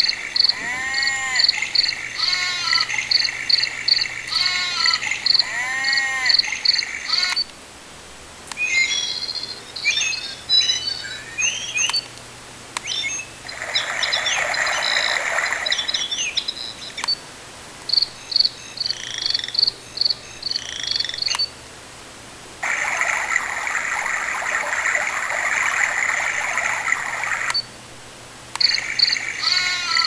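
Recorded nature sounds from a novelty LED alarm clock, played through the clock's speaker: rhythmic frog and insect chirping, trilling bird calls, and in some tracks a steady rushing hiss beneath. The sound drops out briefly four times as the track changes.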